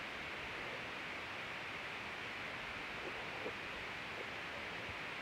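Steady background hiss, with a few faint soft squelches of slime being pressed by hand about three to four seconds in.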